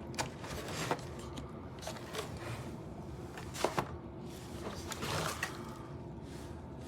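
A few light clicks and knocks with soft rustling, as of something being handled; the loudest knock comes about three and a half seconds in.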